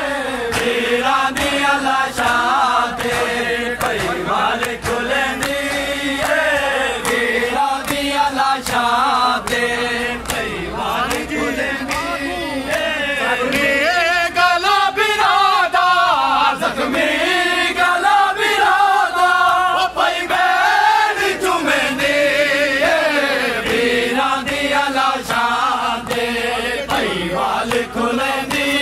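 A crowd of men chanting a Punjabi noha (mourning lament) together in one continuous melodic line, over regular sharp slaps of matam, hands beating on bare chests in time with the chant.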